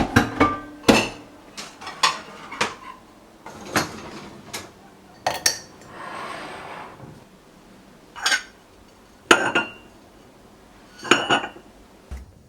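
Kitchen dishes and utensils being handled: a string of separate clinks and knocks, a dozen or so, each with a short ring, and a soft rushing sound for about a second in the middle.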